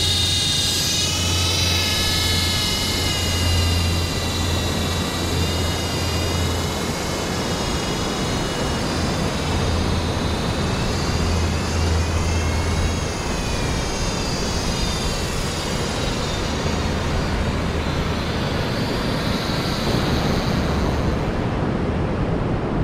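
Quadcopter drone's propellers whining, the pitch sliding up and down as it flies, over a steady rush of wind and surf.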